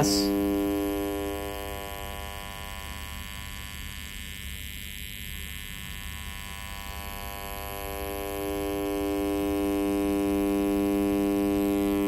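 A buzzy test tone played through the high-pass section of a Krohn-Hite 3202 analog filter while its cutoff knob is swept. As the cutoff goes up over the first two seconds, the low end drops out and the tone thins and quietens. Around eight seconds in, the cutoff comes back down and the full buzz returns.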